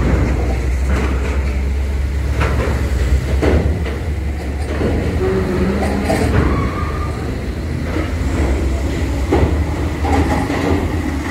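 Light diesel trucks driving off a ferry ramp onto a steel linkspan: a steady low rumble of diesel engines, broken by loud clanks and knocks as the wheels cross the steel plates and joints.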